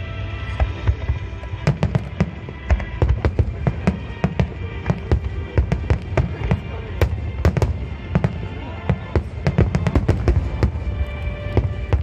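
Aerial fireworks bursting in a rapid, irregular string of sharp bangs and crackles with deep booming rumble, over music playing in the background.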